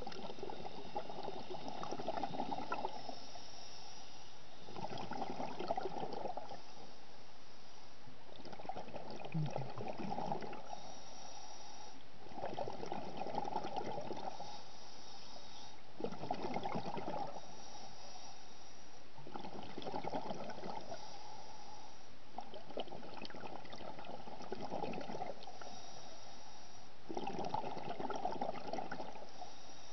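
Scuba diver breathing through a regulator underwater: bursts of exhaled bubbles about every three to four seconds, eight in all, with a fainter high hiss between them.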